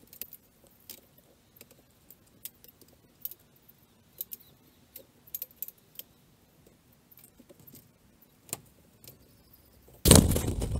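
Aluminium ladder clinking and clanking in short, irregular metallic knocks as it is raised and set against a wall. Near the end a sudden loud rushing noise takes over.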